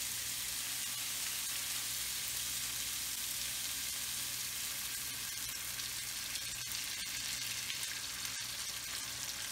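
Onions and tomatoes sizzling steadily in a hot frying pan as white wine is poured in.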